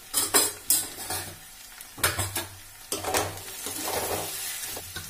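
Metal clinks and clanks, then a long metal slotted spoon scraping and stirring potatoes and peas in an aluminium kadai, with oil sizzling underneath.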